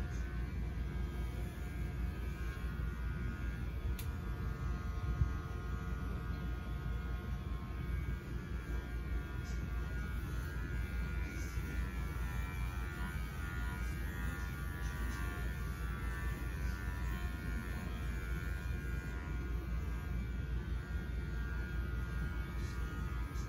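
Electric pet hair clippers running with a steady buzzing hum.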